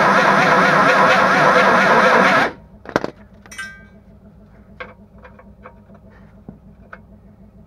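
A power tool grinding out an undersized bolt hole in the car's metal bracket, running steadily with a wavering pitch, then stopping abruptly about two and a half seconds in. A knock and a ringing metal clink follow, then a few light taps.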